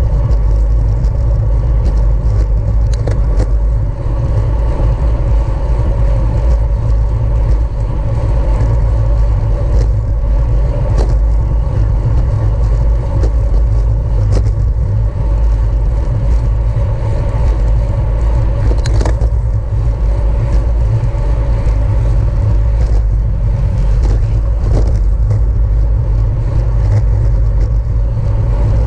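Wind buffeting the microphone of a camera riding on a racing bicycle at speed: a steady, heavy rumble. Fainter tyre and drivetrain hum runs over it, with a few scattered clicks.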